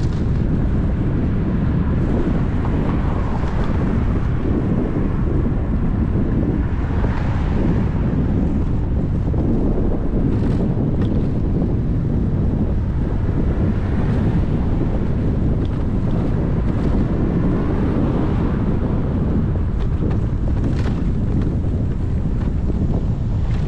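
Steady wind rumble on the microphone of a camera carried on a moving bicycle, from the rider's own speed through the air.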